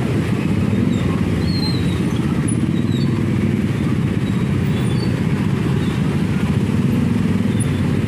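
Many motorcycle and scooter engines running at once, a steady, dense low drone of a slow-moving crowd of motorbikes.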